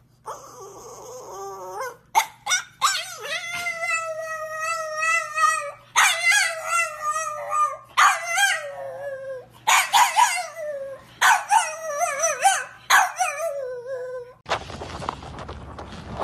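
French bulldog howling in a series of long, wavering calls, the longest about three seconds, broken by a few short yelps. Near the end the howling stops and a steady noise takes over.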